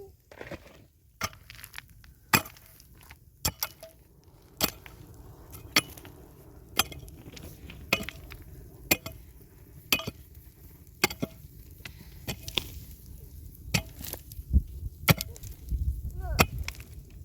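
Wood being chopped: sharp blows struck steadily, about one a second.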